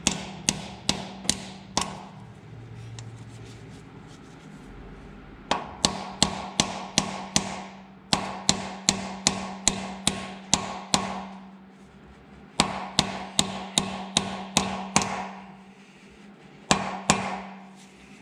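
Hammer striking a steel bearing driver, metal on metal, to drive a roller pilot bearing into the rear of a Ford 289 V8's crankshaft. Sharp ringing blows come about two to three a second in four runs, with short pauses between them.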